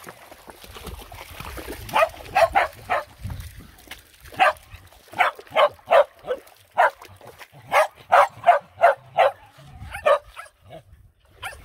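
A dog yipping and barking in short, fairly high calls, about twenty of them in quick runs of three to five.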